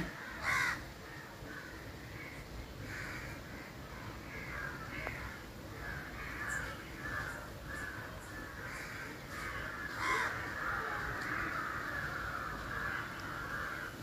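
Riding in an auto-rickshaw on a wet road: a steady low rumble of the moving vehicle, with harsh rasping sounds, several a second, that grow stronger about ten seconds in.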